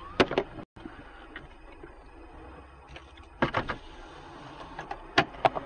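Steady low road and engine noise heard from inside a moving car, with a few short sharp clicks or knocks.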